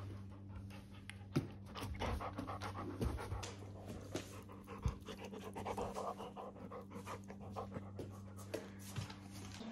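A young Barbet dog panting rapidly right at the microphone, with a few sharp clicks among the breaths.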